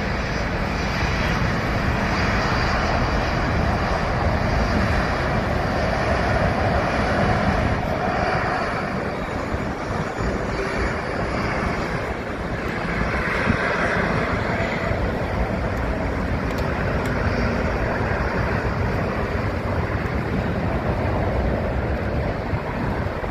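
Jet airliner engines, a Boeing 737 twin-jet among them, running at taxi power: a steady roar over a low rumble.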